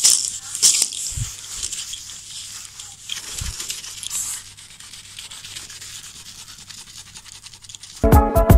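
Soft, irregular rubbing and scuffing noise with a couple of dull knocks. Music starts just before the end.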